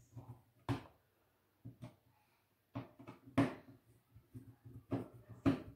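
Small clock parts being handled and fitted onto a wall-clock face on a tabletop: a series of sharp clicks and taps, the loudest about three and a half seconds in.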